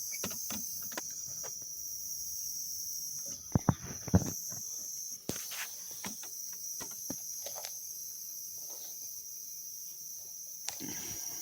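Homemade humidifier running with a steady high-pitched hiss over a faint low hum. Scattered light clicks and knocks, two louder ones about four seconds in.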